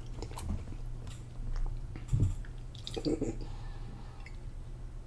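Close-up chewing and biting of food, with small wet mouth clicks; a low steady hum runs underneath.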